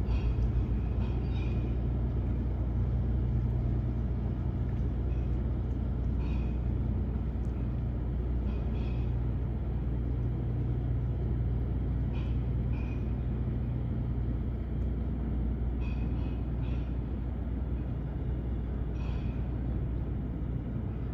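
A large engine running steadily with a deep, even hum. Short high chirps or squeaks come through every few seconds.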